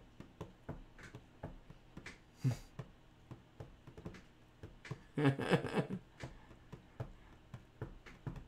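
Scattered light clicks and taps, with a brief low voice-like hum about five seconds in.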